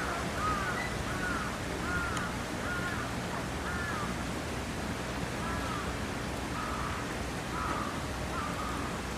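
A bird calling over and over: a long run of short, arched calls, roughly one a second, over steady background noise.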